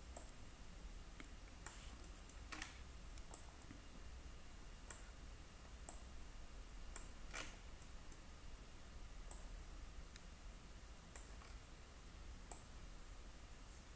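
Faint, scattered clicks of a computer mouse, about ten spread irregularly, over a quiet room hiss.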